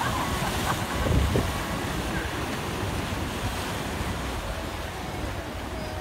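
Ocean waves breaking and washing into foam, a steady rush of surf, with wind buffeting the microphone as a low gusty rumble.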